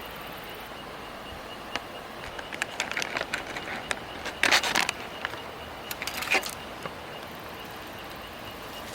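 Camp-cooking handling noises: a run of light clicks and rustles of utensils and packaging, busiest in the middle with a louder rustling scrape about four and a half seconds in, over a steady outdoor hiss.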